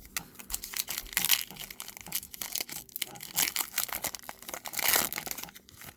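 Trading cards being handled and sorted into a pile: a run of quick clicks, slides and rustles as the cards are flicked and stacked.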